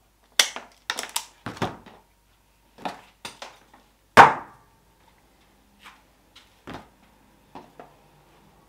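Sharp clicks from a hand wire stripper stripping red and black solar panel cable. About four seconds in comes a single louder knock of a tool set down on a workbench, followed by a few lighter clicks as the wire is handled.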